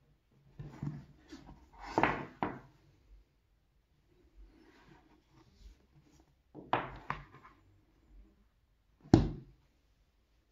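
A hardback and a paperback book being handled and turned over on a wooden table: brushing and handling noises in a few short spells, then one sharp knock near the end as a book is set down on the wood.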